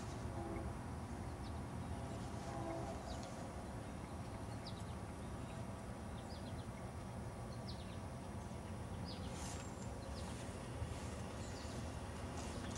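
Outdoor ambience: a steady low rumble, with faint, scattered short bird chirps high above it.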